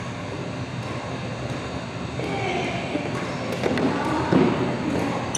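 Badminton rally: several sharp racket hits on a shuttlecock in the second half, over a steady hum of the hall's fans.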